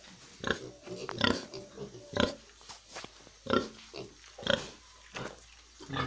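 Domestic pigs grunting: a string of short, separate grunts, about one a second.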